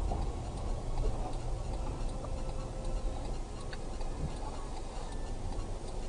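Light ticking inside a car's cabin over a steady low rumble of engine and road.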